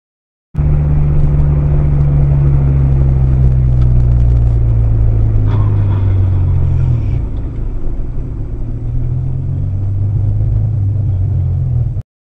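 Car engine and road noise heard from inside the cabin through a dash cam, a loud steady low drone. The drone dips and shifts in pitch briefly a little past halfway, then settles again. It starts suddenly about half a second in and cuts off abruptly just before the end.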